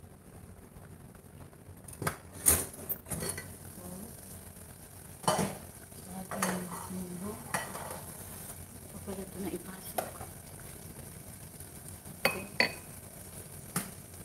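Kitchen cookware clatter: metal pots, a lid and utensils clinking and knocking about ten times at irregular intervals as a small aluminium saucepan on a gas stove is uncovered and checked. A faint sizzling hiss from the cooking runs underneath.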